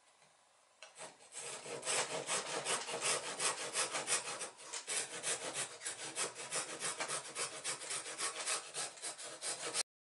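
Small back saw cutting through a thin wooden stick in quick, short strokes, about five a second. It starts about a second in and cuts off suddenly near the end.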